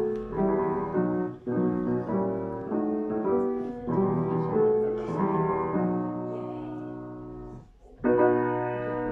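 Grand piano playing a slow passage of chords, each ringing and fading, with a short lull before a fresh chord is struck about a second before the end.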